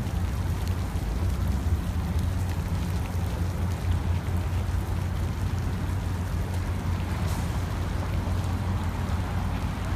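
Water sprinkler spraying onto the ground, a steady rain-like hiss, over a steady low rumble.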